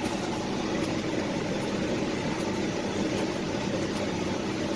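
Semi truck's diesel engine running steadily at road speed, with road noise, heard from inside the cab: an even drone with a low engine hum.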